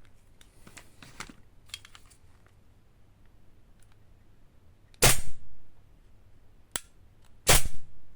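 Airsoft pistol fired without BBs, twice about two and a half seconds apart, each a sharp gas-powered shot with the slide kicking back. Faint trigger and reset clicks come before and between the shots.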